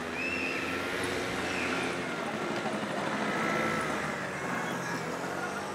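Small motor scooter engines running, their pitch shifting a little as they ride, with faint distant voices.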